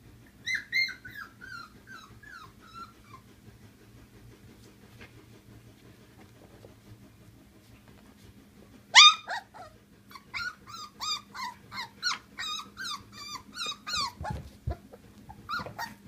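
Polish Lowland Sheepdog puppies, about four weeks old, yipping and whimpering in play. A short run of falling squeals comes near the start, then a loud yelp about halfway, followed by a quick string of high yips about three a second. A couple of low bumps come near the end.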